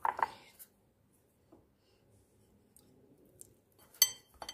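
Kitchen utensils and a mixing bowl knocking while dough is mixed by hand: a few soft knocks at the start, then quiet, then a sharp clink that rings briefly about four seconds in, followed by two small clicks.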